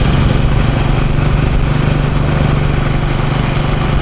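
Steady running noise of a road vehicle on the move: a constant low engine hum under even road and wind noise.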